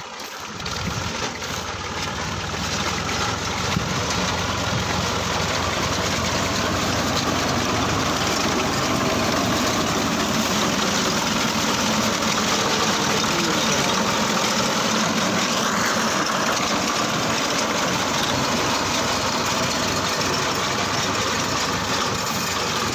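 Fiat 480 tractor's three-cylinder diesel engine running steadily as it drives a front-mounted reaper through standing wheat. It grows louder over the first few seconds as it comes close.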